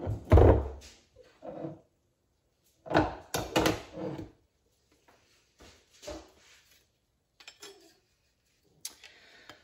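Steel automatic-transmission parts handled on a metal-topped workbench. A thunk comes just after the start as a clutch drum is set down, then several short bursts of metallic clatter and clinks as the direct clutch plates are picked up and sorted.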